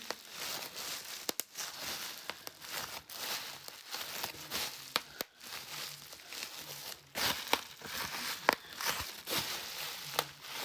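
Bubble wrap squeezed and popped by hand: about a dozen sharp, irregular pops over the crinkling of the plastic sheet.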